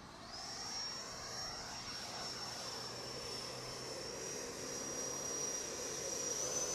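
Electric ducted fan of a Freewing Eurofighter Typhoon RC jet whining in flight. The high whine steps up in pitch a little about a quarter second in, and again a little after four seconds and near the end, as the fan speeds up.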